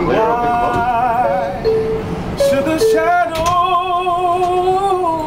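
A man singing a gospel hymn unaccompanied, without words: a few stepped notes, then one long held note with vibrato from about three seconds in.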